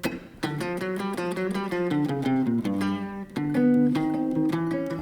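Solo blues guitar playing a four-bar intro: a quick run of picked notes and double stops over a walking bass line.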